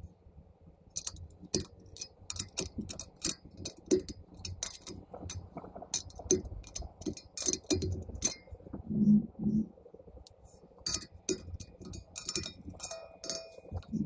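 Spokes and a spoke wrench on an e-bike hub-motor wheel clicking and clinking irregularly as the spokes are tightened to true the rim. The clicks start about a second in, with a few brief metallic rings near the end.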